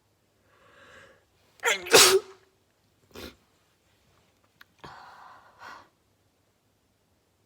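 A person sneezing once, loudly, about two seconds in. A faint drawn-in breath comes before it, and softer breathy sounds follow.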